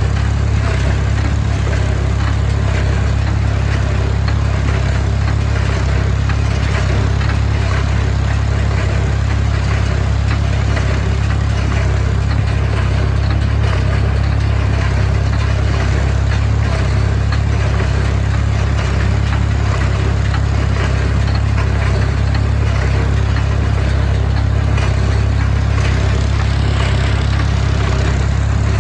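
Heavy farm machine's engine running steadily under load, a constant low drone with no change in speed.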